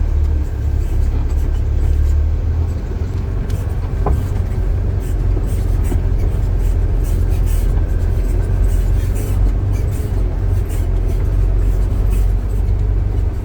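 Heavy diesel engine running steadily with a deep low rumble.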